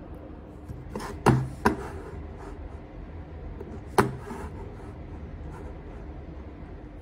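A few sharp knocks on a hard surface: two close together about a second in, a third about four seconds in, with lighter taps and clicks around them.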